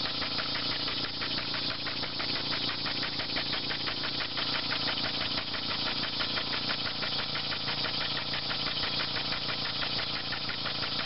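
Homemade model steam engine running fast on compressed air at about 40 psi, its valve exhausting in a rapid, even chuffing, with an adjustable screw pressing on the valve shaft for a better seal. A racket of cicadas buzzes behind it.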